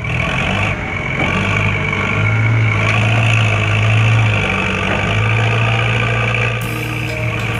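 Heavy truck diesel engine idling with a steady low hum, running a little stronger a few seconds in; a hiss joins near the end.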